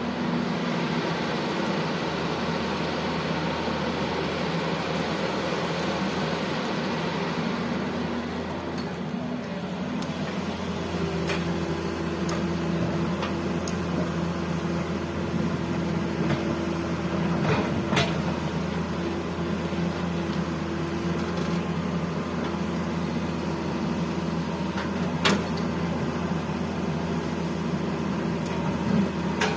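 Heavy diesel engines running steadily. A hiss fades out about a third of the way through, and two sharp clanks come later.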